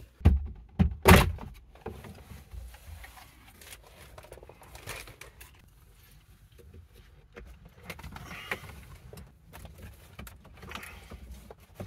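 Handling noise from cables and plastic dashboard trim: a few loud knocks in the first second or so, then faint rustling and light clicks as the wiring is worked in behind the vent opening.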